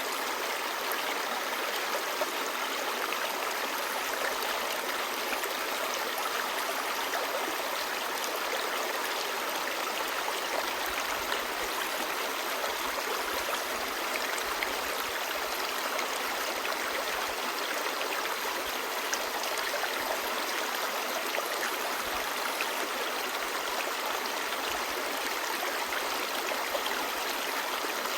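Clear mountain stream babbling over rocks: a steady, even rush of flowing water with small splashes and gurgles throughout.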